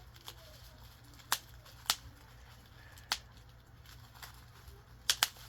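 Short sharp clicks and snips from a mailed package being cut and handled open: five in all, spread out, the last two in quick succession near the end.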